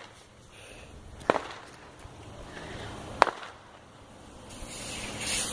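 Fireworks going off: two sharp bangs about two seconds apart, then a hiss that swells near the end.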